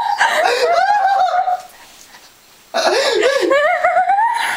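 A man laughing in high-pitched giggles, in two bouts with a short pause about two seconds in.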